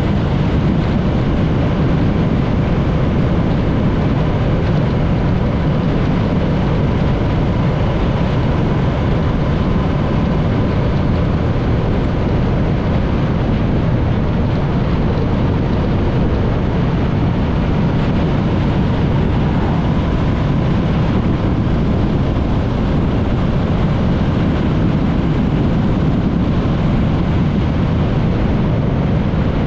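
Motorcycle under way on a winding road: a steady rush of wind and riding noise with the engine underneath, holding an even level with no clear gear changes.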